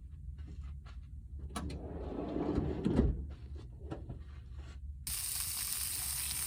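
Clicks and clatter of camp cookware being handled. About five seconds in, a steady sizzling hiss of cooking starts abruptly.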